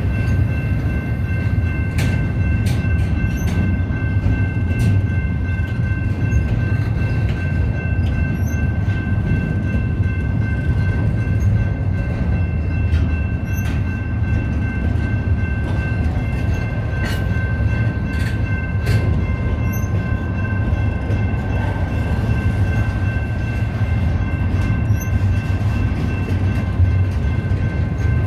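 BNSF intermodal freight train rolling past: a steady heavy rumble of the cars, with scattered sharp clicks from the wheels and a steady high whine held throughout.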